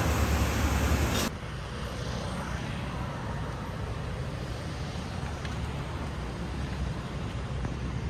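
Loud, steady kitchen noise from a working gas range stops abruptly about a second in. It gives way to a steady hum of distant road traffic.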